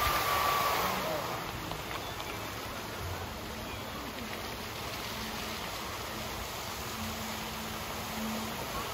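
Large performance fountain's water jets spraying and falling back into the basin: a steady hiss of splashing water. A short high whistle sounds in the first second.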